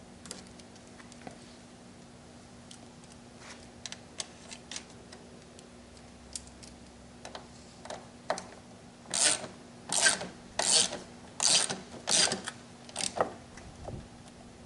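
Ratchet wrench tightening the bolt of a new mower front wheel. Light clicks and taps come first, then from about nine seconds in there are six ratcheting strokes, about one every three quarters of a second.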